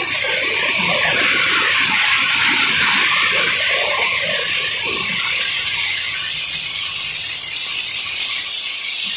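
Heavy tropical downpour: rain hissing steadily, with water streaming off the roof edge onto the walkway.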